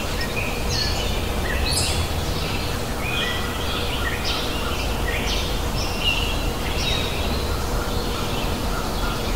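Outdoor birdsong: many short chirps and calls from several birds, scattered throughout over a steady low rumble.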